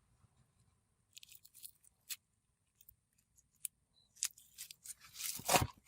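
Glossy snow-fizz slime being poked and stretched by hand: scattered small clicks and pops, then louder crackly squishing near the end.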